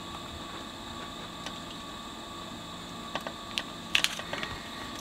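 Steady background hum from the workbench, with a few faint clicks and taps about three to four seconds in as hands press a strip of vinyl against the metal front plate of a radio chassis.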